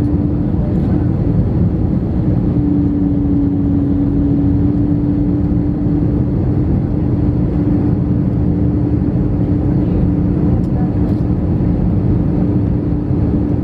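Airbus A319 cabin noise heard from a window seat over the wing: the steady rush and drone of the jet engines and airflow during the descent to land, with a steady low hum running through it that drops out briefly about a second in.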